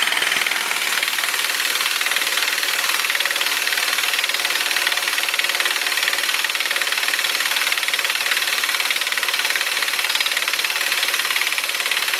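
Craftsman pneumatic impact wrench hammering steadily on a front axle nut through a 36 mm deep socket. It keeps hammering without let-up because the gun struggles to break the tight nut loose.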